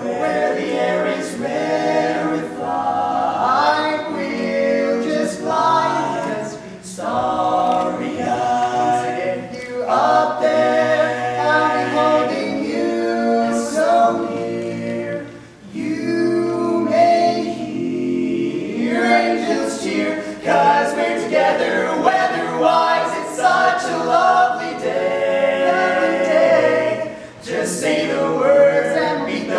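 Barbershop quartet singing unaccompanied in close four-part harmony, in sustained chords with short breaks between phrases.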